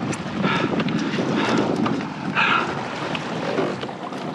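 Wind buffeting the microphone over water sloshing around the kayak, with short rushing bursts about once a second.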